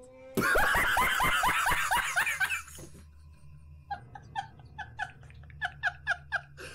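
A loud scream with a shaking pitch for about two seconds, then a man laughing hard in short rapid bursts, about four a second, over a low steady hum.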